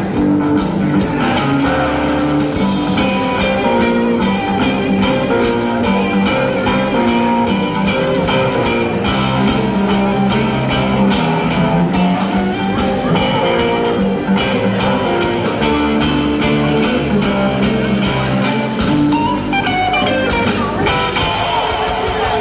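Live rock band playing, with guitar out front over bass, drums and keyboard.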